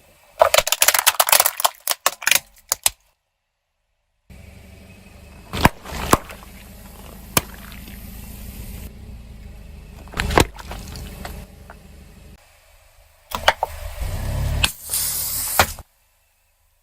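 Series of crackling crunches and sharp pops in several short segments broken by abrupt cuts, with a low rumble under the middle part.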